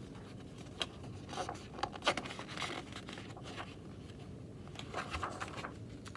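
Soft, scattered rustles and scrapes of a hardcover picture book's paper pages being handled, with a page turned near the end.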